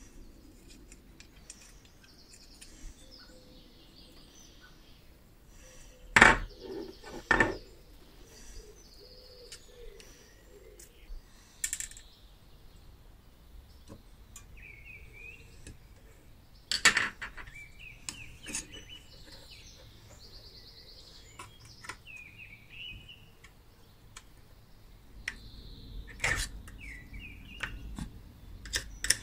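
Steel hand tool clinking and scraping against the rusty sheet-steel shell of a 1940s Zephyr hair drier as it is pried apart: a few sharp metallic clinks scattered through, the loudest two close together early on and another pair about halfway, with quiet scraping between.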